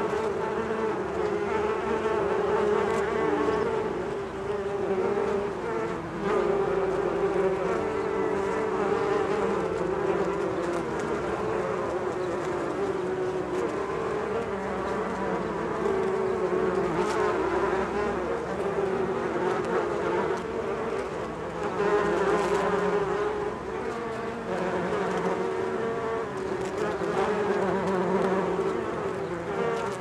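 Many bees buzzing together at a large beehive: a dense, steady hum that wavers slightly in pitch and swells briefly now and then.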